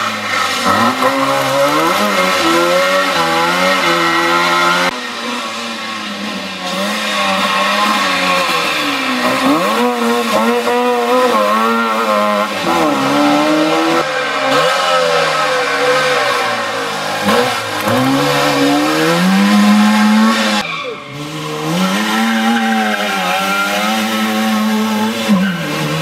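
Trabant 601 rally cars' two-stroke twin-cylinder engines revving hard as the cars pass one after another. The pitch climbs through each gear and drops back at the shifts, and the sound changes abruptly from car to car several times.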